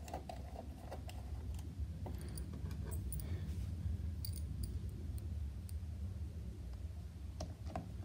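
Small precision screwdriver and a tiny case screw being handled and fitted to a laptop's bottom panel: scattered faint metal clicks and ticks over a low steady hum.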